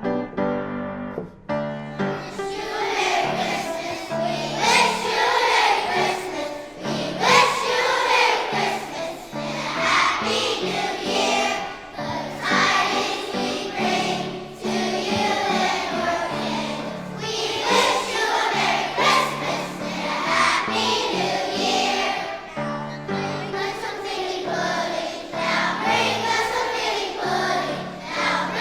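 First-grade children's chorus singing a holiday song in unison over instrumental accompaniment; the singing comes in about two seconds in, after a short instrumental passage.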